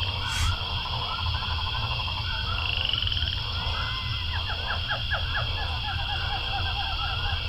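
Frogs calling in a chorus: many short, quickly repeated croaks that overlap, over a steady high tone and a low hum.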